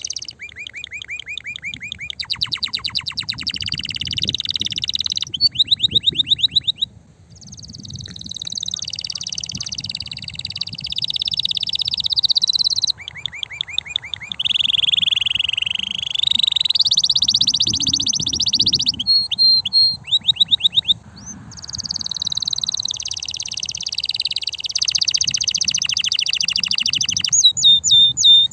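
Male domestic canary singing a long, loud song of fast rolling trills and repeated notes, changing phrase every second or two with only brief pauses.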